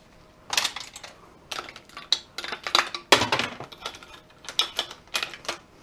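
Metal scrap parts clinking and knocking together as a salvaged rear-projection TV part and its loose bolts are handled over a scrap barrel, about a dozen irregular sharp clinks.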